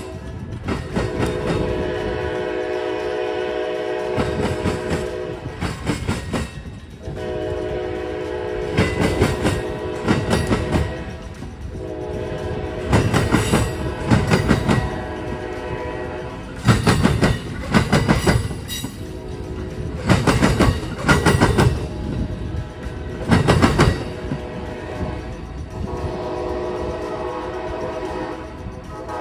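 Amtrak Silver Star passenger train passing over a railroad diamond crossing. The locomotive horn sounds three long blasts, near the start, about eight seconds in, and near the end, and in between the wheels bang over the diamond in repeated clusters of heavy clacks.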